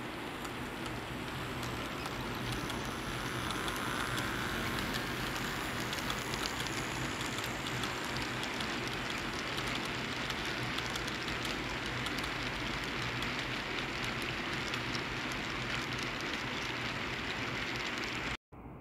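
HO-scale model freight train, a pair of MRS diesel locomotives hauling sulfur wagons, rolling past close by: a steady rushing rumble of wheels on track with many fine clicks. It cuts off suddenly near the end.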